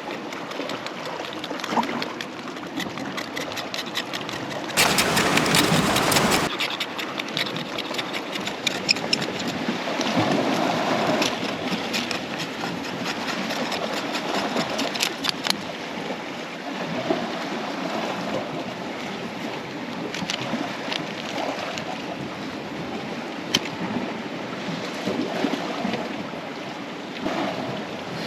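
Sea water washing and trickling among shoreline rocks, with scattered small clicks and knocks, and a brief loud rush of noise about five seconds in.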